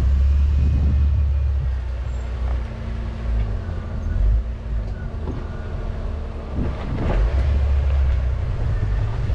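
Jeep driving on a dirt trail: a steady low rumble of engine and tyres, with a thin steady hum that comes in about a second and a half in and stops about six and a half seconds in.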